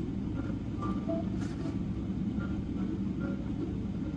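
Steady low rumble inside the cabin of a Boeing 777-300 taxiing on the ground, engines at idle. A few faint short tones sound above the rumble.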